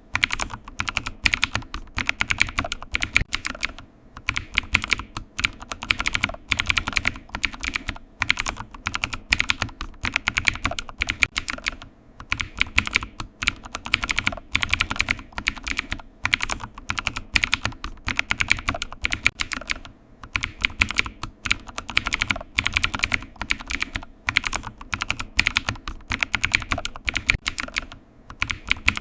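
Computer keyboard typing: a fast, continuous run of key clicks with short pauses now and then.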